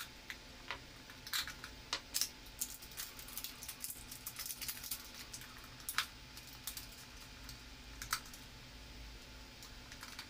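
Small plastic clicks and taps from handling a battery-powered toy robot at its battery compartment, the AAA batteries being reseated after it failed to switch on. The clicks come in an irregular run, thickest between about one and eight seconds in.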